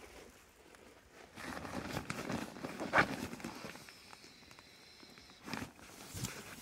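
Rustling and handling of nylon camping gear, a sleeping pad being worked at its valve, with a sharp click about three seconds in and a short thump near the end.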